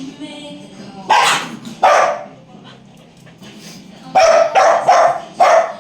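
A dog barking: two sharp barks about a second apart, then a quick run of four barks near the end.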